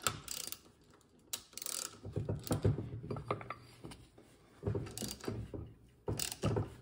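Ratchet wrench clicking in short groups of strokes as it turns the forcing screw of a steering-wheel puller, pressing down on a seized motorcycle piston.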